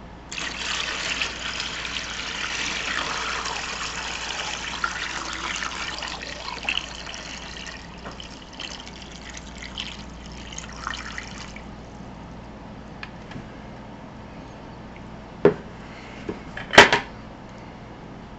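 Water poured from a plastic bucket into a plastic tub over compressed coconut-fibre bricks, a steady splashing pour that tapers off after about eleven seconds. Two sharp knocks near the end, the second the loudest.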